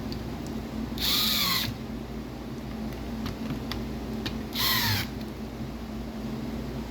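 Two short, harsh animal calls about three and a half seconds apart, each rising and then falling in pitch, over a steady low background hum.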